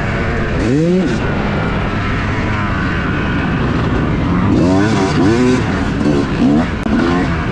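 Yamaha YZ250 two-stroke dirt bike engine under way, revving hard up and down as the throttle is worked, with sharp rising sweeps about a second in and several more in quick succession past the middle.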